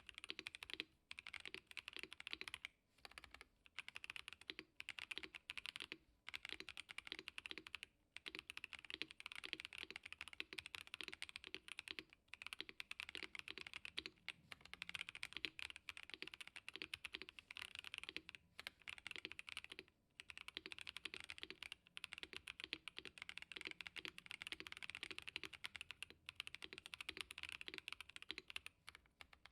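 Fast continuous typing on a KBD67 Lite R3 custom mechanical keyboard with Boba U4T tactile switches and PBT keycaps: a steady stream of muted, thocky keystrokes with a few short pauses between bursts.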